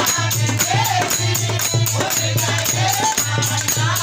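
Hindi devotional bhajan music: a steady rhythmic beat with jingling, rattling percussion under a wavering melody line.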